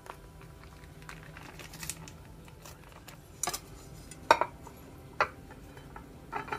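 Corelle dinner plates being handled: several sharp, irregularly spaced clinks and knocks of plate against plate or counter, the loudest a little past the middle.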